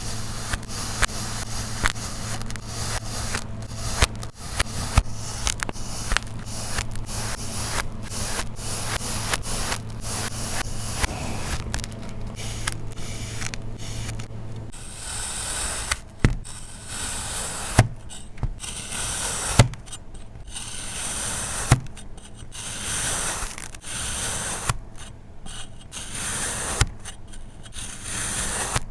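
Kinetic sand being cut and scraped with a tool: a dense run of short, crisp crunching scrapes. A low steady hum underneath stops about halfway, and a few sharper taps stand out after it.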